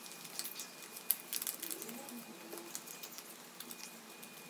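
A sheet of paper rustling and crinkling as it is folded by hand, a run of small dry crackles with one sharper crackle about a second in.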